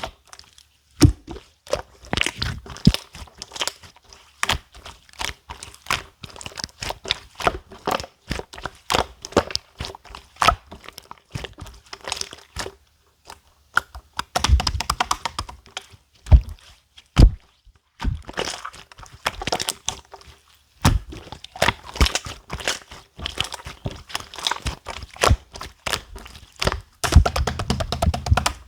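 Clear slime being squeezed and poked, making many quick irregular clicks and pops, with a few heavier thuds among them.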